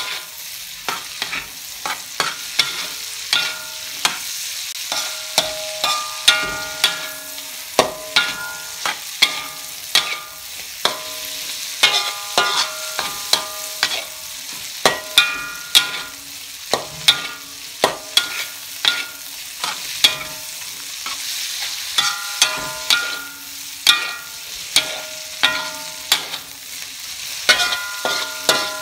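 Metal spatula scraping and striking a steel wok about once or twice a second, the wok ringing briefly after each strike. Underneath is the steady sizzle of meat and vegetables stir-frying.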